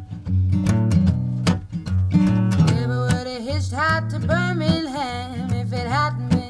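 Background music: an acoustic country-style song with strummed acoustic guitar and a bass line, and a wavering melody line coming in over it about three seconds in.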